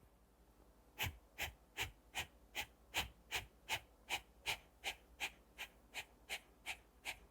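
A man's short, forceful breaths out in a steady rhythm, about three puffs a second, starting about a second in. Each puff is driven by a stroke of the stomach muscles while the in-breath through the nose stays passive, as in a kapalbhati-style breathing exercise.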